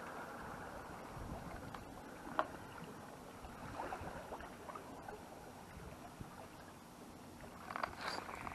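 Sea water lapping around concrete breakwater blocks, with light wind on the microphone. A few clicks and knocks come in near the end.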